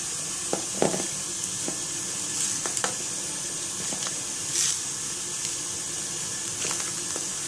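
Slime full of plastic beads being mixed by hand: scattered faint clicks and crackles over a steady high hiss.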